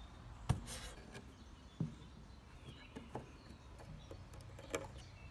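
Faint hand-work noises on a wooden board: a few sharp little taps and clicks about a second or so apart as a glue bottle and screws are handled, over a low outdoor background.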